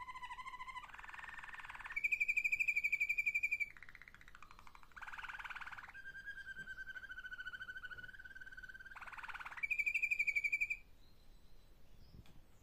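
Malinois (Waterslager) song canary singing a string of trills and rolls, some low and rolling, one long and steady, and two fast high trills that are the loudest parts. The song stops about eleven seconds in.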